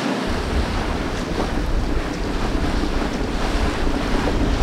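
Wind buffeting the microphone over the rush of sea water around a sailboat under way, with a heavy low rumble from the wind coming in about a quarter second in.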